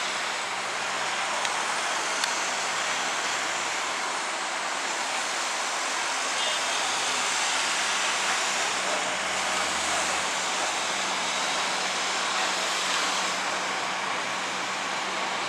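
Steady city traffic noise with a constant low hum underneath.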